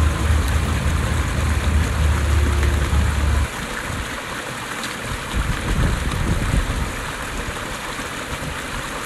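Bus engine droning low inside the cabin under a steady rushing noise, which stops at a cut about three and a half seconds in. After the cut, wind buffets the microphone: a steady rush with uneven low rumbles.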